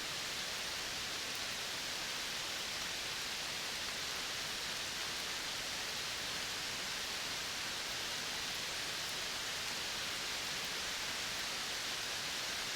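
Steady, even hiss of tropical forest ambience, with no distinct calls or events standing out.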